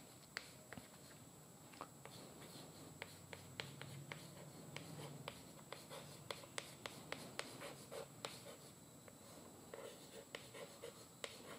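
Chalk writing on a blackboard: faint, irregular taps and short scratches, several a second, as each letter stroke is drawn.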